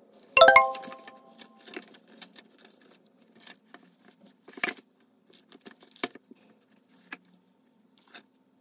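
A metal object clinks once, ringing briefly with a clear metallic tone, followed by scattered light clicks and taps of small objects being handled.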